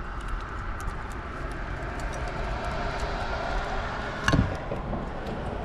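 A steady outdoor rumble, with faint clicks of handling and one sharp click about four seconds in: side cutters snipping a plastic zip tie off a throttle body.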